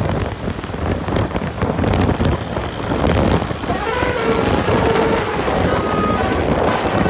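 Traffic and wind noise on the microphone, with a bus's multi-tone 'basuri' telolet horn starting up about halfway through, sounding short held notes at changing pitches.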